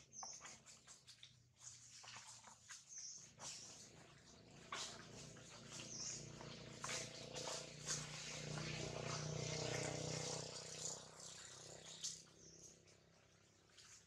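Quiet outdoor ambience: scattered rustles and ticks, a few short high chirps, and a low hum that swells in the middle and fades again.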